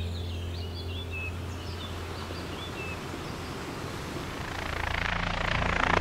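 Steady outdoor rushing ambience with a low hum, birds chirping in the first second or two, then a whoosh swelling up near the end.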